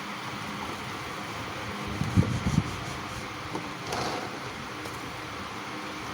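Steady fan-like whirring, with a quick cluster of three or four low thumps about two seconds in and a short scraping rustle around four seconds.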